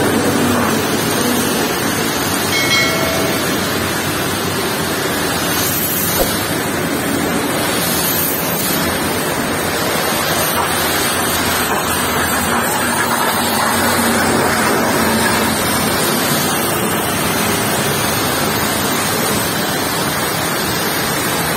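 High-pressure washer jet spraying steadily against a truck trailer's rear door panels: a loud, continuous rushing hiss of water.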